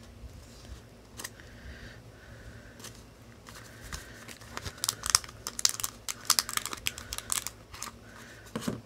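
Clear plastic blind-box packaging crinkling and crackling as hands handle and open it. Scattered clicks come first, then a dense run of crackles from about four and a half to seven and a half seconds in.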